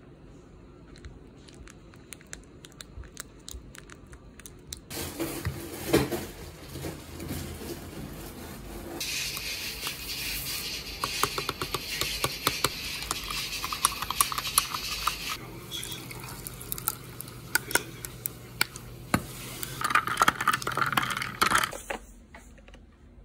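Light clinks and taps of dishes and cutlery, with some hiss that may be pouring or running liquid. The background changes abruptly several times, as if separate short scenes were cut together.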